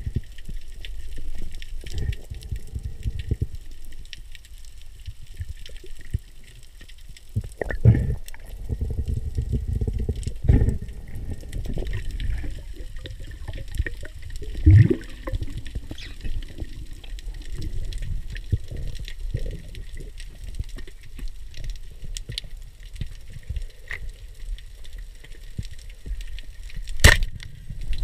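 Underwater sound picked up by a camera in a waterproof housing as a spearfisher swims over a reef: an uneven, muffled low rumble of water movement that swells now and then, with many small scattered clicks and one loud sharp click near the end.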